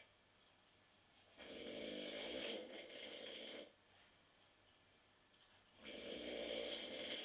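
A man asleep on a sofa snoring, drunk after too many beers: two long snores, one starting about a second and a half in and the next about four seconds later, with quiet breathing between.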